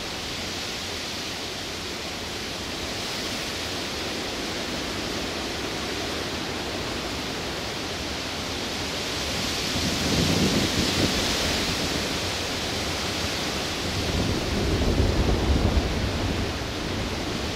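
A steady rushing noise with no rhythm, swelling into deeper rumbles about ten seconds in and again near the end.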